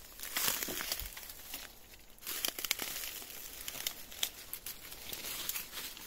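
Undergrowth rustling and crackling as a person pushes through a dense, prickly thicket on foot. The sound is an irregular run of small snaps and crackles.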